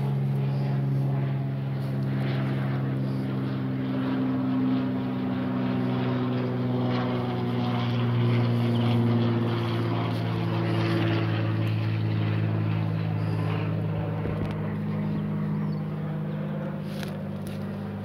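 A steady engine drone with a low pitched hum whose pitch drifts slowly, easing off a little near the end.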